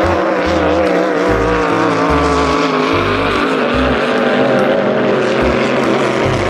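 Toy speedboat's electronic motorboat engine sound effect, playing steadily with a slightly wavering pitch.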